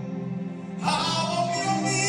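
Live band music during a sound check: held notes fade to a quieter moment, then a new chord strikes just under a second in and rings on.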